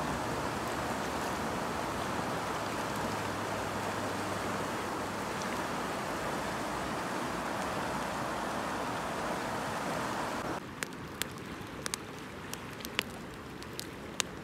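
Steady rush of a fast mountain river over rapids. About ten seconds in it gives way to a wood campfire crackling with sharp pops over a fainter river rush.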